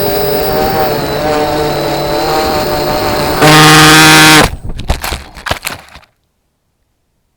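FPV racing miniquad's brushless motors whining steadily, then a loud burst of throttle for about a second before cutting off abruptly, followed by a few scattered knocks and clicks.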